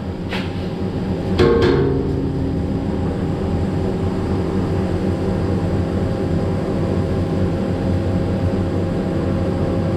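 Bulk feed truck's engine and unloading machinery running steadily while conveying pig feed into a silo, with a sharp metallic clank about a second and a half in.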